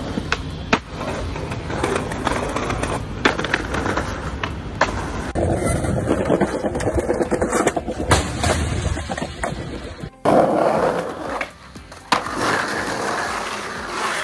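Skateboard wheels rolling on concrete and pavement, with repeated sharp clacks of boards popping and landing.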